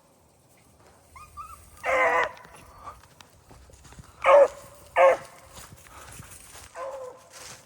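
Beagles baying on a rabbit's trail: a few short yelps, then separate bawls about two seconds in, two loud ones close together around four to five seconds, and a softer one near the end.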